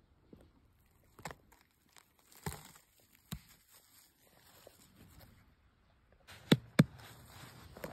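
A hand rustling through moss and dry pine needles on the forest floor, with scattered soft crackles and two sharp clicks close together near the end.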